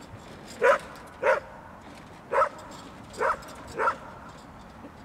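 Dog barking at a mock bear on a wheeled cart: five short single barks, the first two close together about a second in, then three more spaced under a second apart.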